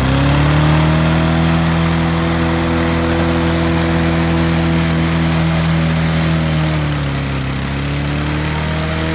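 Snapper self-propelled lawn mower engine running flat out at a steady high speed, having just caught and revved up; its speed sags briefly about seven seconds in and then picks back up. It runs wide open because a broken-off flap in the choke and idle linkage leaves the throttle stuck.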